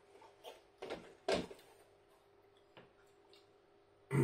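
A man eating apple crumble with custard: a few short, soft spoon and mouth noises in the first second and a half, then quiet chewing of the stodgy crumble topping.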